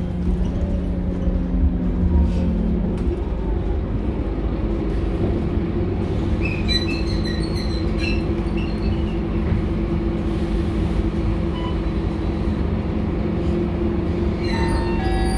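Scania K230UB city bus running, heard from inside the passenger cabin: a steady diesel engine and drivetrain drone with road rumble. Brief high-pitched squeals come in about seven seconds in and again near the end.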